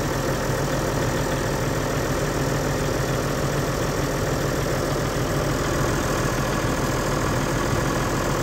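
Off-road 4x4's engine idling steadily.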